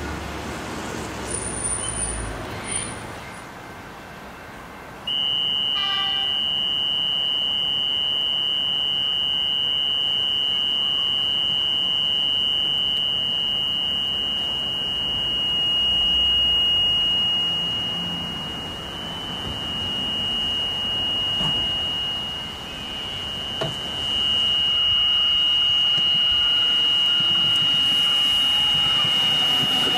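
Level crossing warning switching on about five seconds in: a short chime, then a continuous high electronic warning tone that holds steadily. Near the end an X'trapolis 100 electric train approaches the crossing.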